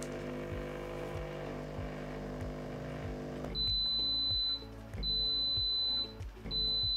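Dualit Espressivo Pro espresso machine's pump humming steadily while dispensing hot water. It stops about halfway through, and the machine gives three long, high beeps, signalling that the descale hot-water stage is finished.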